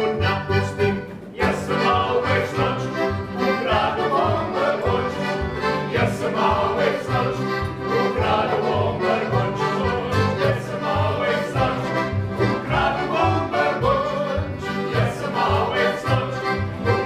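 Live accordion and acoustic guitar playing a lively folk-style song with a steady oom-pah bass beat, and voices singing along. The music dips briefly about a second in, then carries on.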